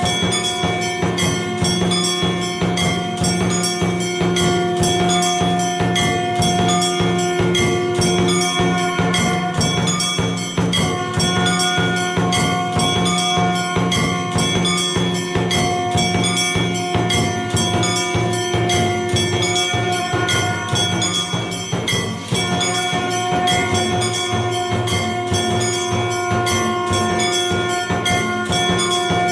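Conch shell (shankh) blown in long held notes, breaking off twice, over fast, steady ringing and clashing of temple aarti bells and percussion.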